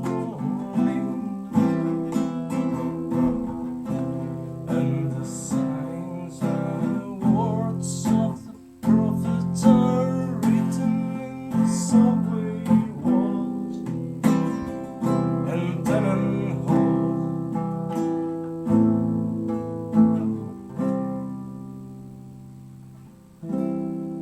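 Acoustic guitar playing an instrumental passage of strummed chords and plucked notes. Near the end a chord rings out and fades before one more strum.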